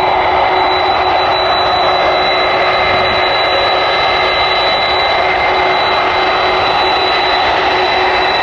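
Boeing 747-400 freighter's jet engines running, a loud steady roar with steady high whining tones over it.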